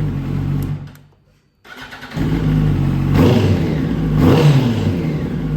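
Yamaha YZF-R1 inline-four motorcycle engine running through a TOCE-style aftermarket silencer. The sound breaks off briefly about a second in, then the engine runs again and is revved twice, each rev rising and falling.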